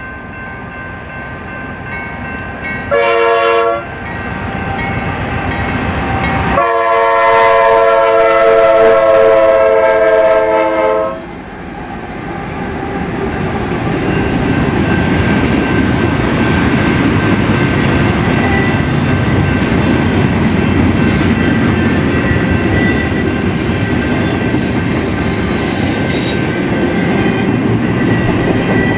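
Norfolk Southern freight locomotive's air horn sounding a chord of several notes: a short blast about three seconds in, then a long blast of about four seconds. After the horn stops, the train passes close by with a steady loud rumble and the clickety-clack of wheels over rail joints.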